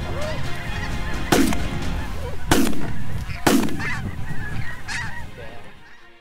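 A flock of snow geese calls overhead, many birds at once, while three shotgun shots go off about a second apart. The calling fades out near the end.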